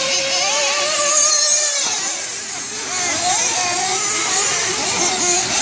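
RC truggy engine (Losi 8IGHT-T 3.0) running at high revs on the track. Its pitch holds steady at first, drops about two seconds in, then rises and falls as the throttle is worked.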